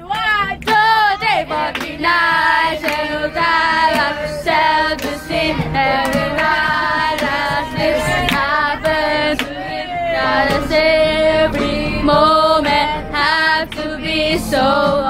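Young voices singing loudly over music, with hand claps mixed in.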